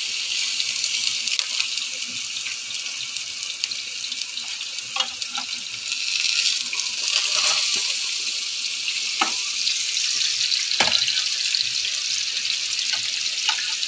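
Hot oil sizzling steadily as breaded patties and potato strips fry in pans. A few sharp clinks of a spoon and pans are heard.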